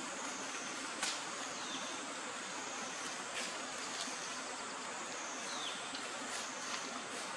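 Forest ambience: a steady high insect hum, with several short sharp clicks and a couple of brief falling bird chirps.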